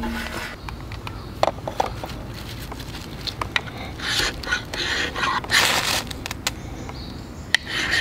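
A knife blade shaving thin curls off a dry wooden stick to make a feather stick: a few rasping strokes of about half a second each in the second half, after a few light knocks in the first two seconds.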